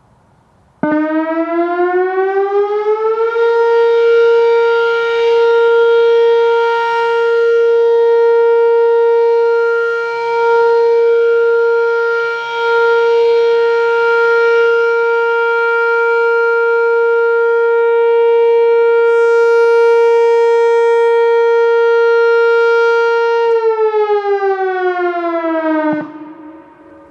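Whelen WPS-4004 electronic outdoor warning siren sounding its steady Alert tone. It starts suddenly about a second in, rises in pitch over a couple of seconds, holds one loud steady tone for about twenty seconds, then winds down in pitch and stops near the end.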